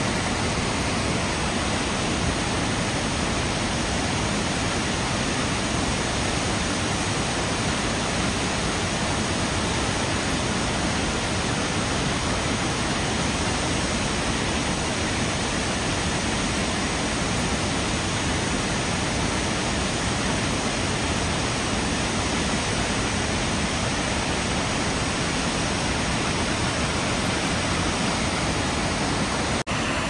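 Keila-Joa waterfall: the river pouring over a wide rock ledge and churning in the rapids below, a loud, steady rushing. It breaks off for an instant just before the end.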